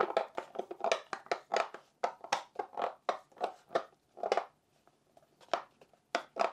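Handling of a 3D-printed plastic controller case: a quick run of small clicks and knocks as the case is gripped and turned over, then a few sparser taps.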